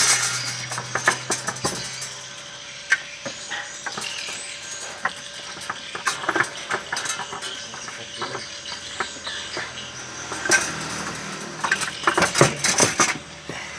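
Repeated sharp metal clanks and clicks of hand tools and parts being handled during engine installation work, clustering into a rapid clatter near the end. A low steady hum cuts off about a second and a half in.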